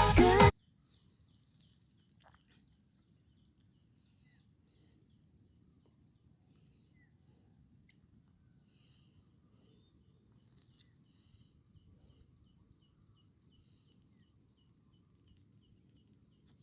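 Electronic background music cuts off about half a second in, leaving faint outdoor ambience: a soft low background rumble, with faint regular high chirps, about two a second, through the second half.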